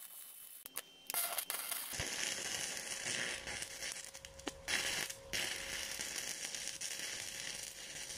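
Stick-welding arc from a 3/32-inch Vulcan 6013 electrode at 80 amps DCEN on grey cast iron: a few scattered pops, then a steady, dense crackling hiss from about two seconds in, with a short break about five seconds in.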